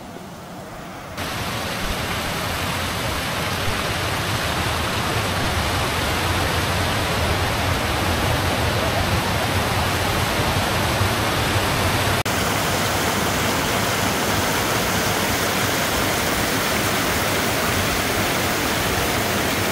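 Stream water rushing steadily over rocks, a dense even rush that cuts in abruptly about a second in, with a brief break just past the middle.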